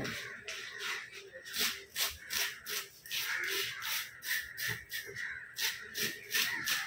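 Serrated scaling knife scraping scales off a large barracuda in quick, rhythmic strokes, about three a second, each a short rasping scrape.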